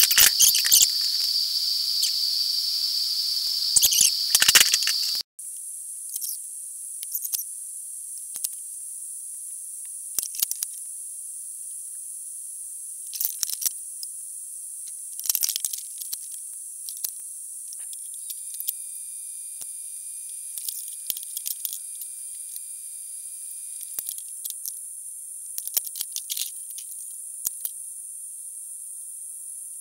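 TIG welding arc tacking a square steel-tube frame: a steady, high-pitched electrical whine with a sizzling hiss and scattered short crackles. The tone jumps higher at an abrupt change about five seconds in.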